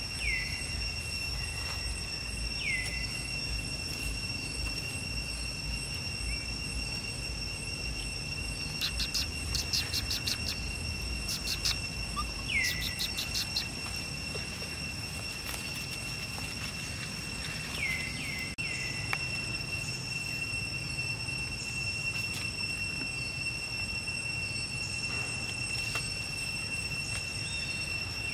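Chorus of insects droning steadily at a high pitch, with a few short falling chirps and, around a third of the way in, two quick runs of rapid ticking pulses.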